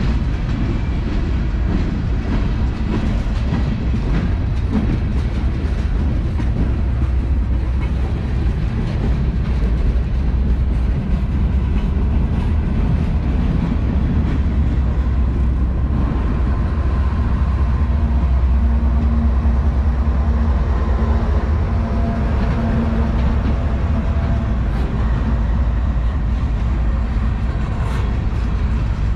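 Freight cars of a long manifest train rolling slowly past, a continuous rumble of steel wheels on rail with clattering from the cars. A low steady hum joins past the middle.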